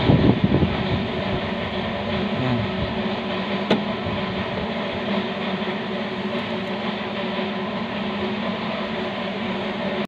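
Steady mechanical hum of a running machine, with one sharp click about four seconds in.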